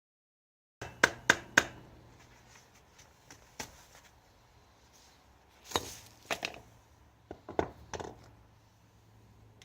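Sharp metallic knocks and clinks of hand tools working on a BMX's crank arms and sprocket as they are taken off. There are three quick knocks about a second in, then more scattered ones, over a faint steady hum.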